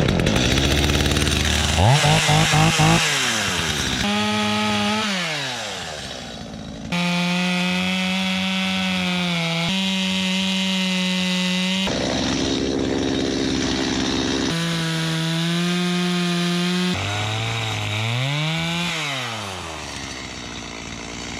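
Two-stroke chainsaw running at high throttle, its pitch rising and falling several times with long steady stretches between, as it cuts stubs and knots off a log.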